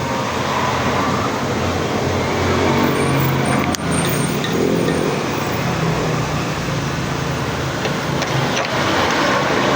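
A steady mechanical drone and hiss, with one sharp click a little under four seconds in.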